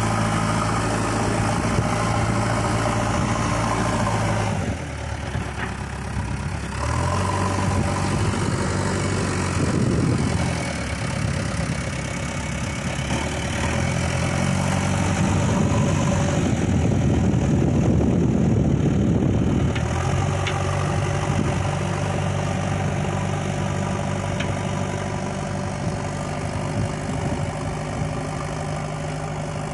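Diesel engine of a JCB 3DX backhoe loader running under work, its speed dropping about five seconds in and changing several times, louder and rougher for a stretch around fifteen to twenty seconds in, then settling to a steady run.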